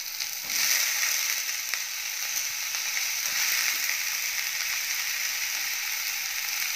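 Eggplant pieces sizzling as they are tipped into hot mustard oil with frying onion, ginger and garlic in a nonstick kadhai. The sizzle gets louder about half a second in as the wet pieces hit the oil, then holds steady.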